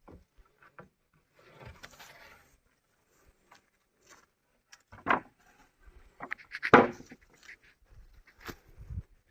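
Irregular knocks, scrapes and rustling, with two louder thuds about five and seven seconds in; no engine running.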